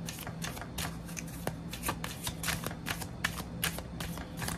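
A deck of large oracle cards shuffled overhand by hand, with a quick, irregular patter of soft card-on-card slaps, several a second.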